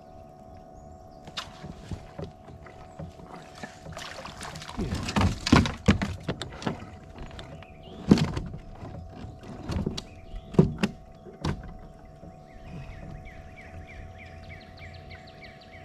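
Knocks, clacks and thumps against a plastic fishing kayak's hull and gear as a just-caught crappie is handled aboard, loudest in the middle. Near the end a bird calls with a quick run of about nine falling chirps.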